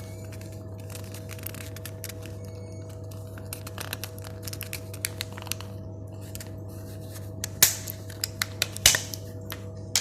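Plastic battery-pack casing being pried open by hand along its seam: small scrapes and clicks, then several sharp, loud clicks about seven to nine seconds in. A steady low hum runs underneath.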